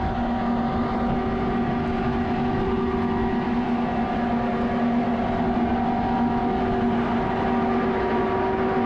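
Farm machinery engine running at a steady speed, a constant hum that holds one pitch.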